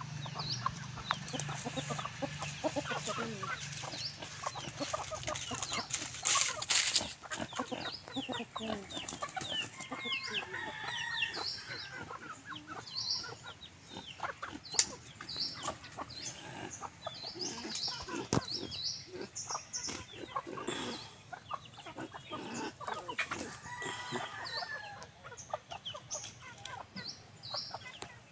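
Free-range chickens clucking as they forage, among many short high chirps and light scratching clicks.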